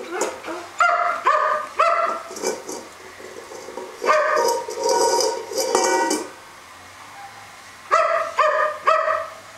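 A dog barking in short yaps: three in a row about a second in, a quicker run of barks from about four to six seconds in, and three more near the end.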